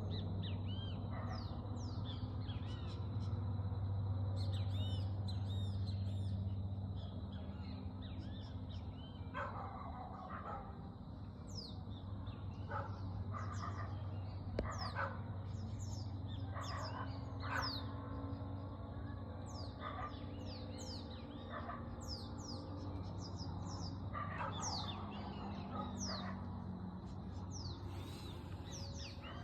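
Birds chirping, with many short high falling chirps throughout and, from about a third of the way in, repeated harsh cawing calls from a larger bird, over a steady low hum.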